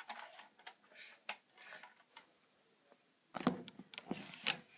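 Plastic Lego bricks clicking and clattering as they are handled: scattered small clicks, then a busier run of louder clicks near the end.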